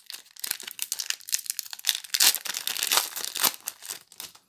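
Foil wrapper of a Magic: The Gathering booster pack crinkling as it is torn open by hand: dense, irregular crackling that stops shortly before the end.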